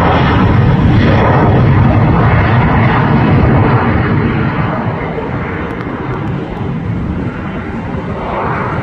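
Embraer E-Jet twin-turbofan regional airliner climbing out overhead: a loud, deep rushing jet noise that starts to fade about four seconds in as the plane pulls away.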